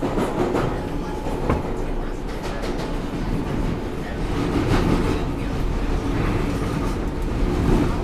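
Inside a New York City subway R142A car on the move, with its air conditioning off: steady running noise with irregular knocks and clacks from the wheels over the track.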